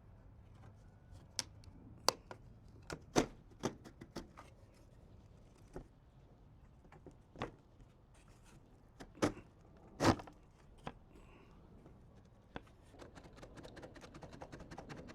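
Irregular sharp clicks and taps of hand tools working a staple and nails out of wooden fascia trim, the loudest about three seconds in and again about ten seconds in, with light scraping toward the end.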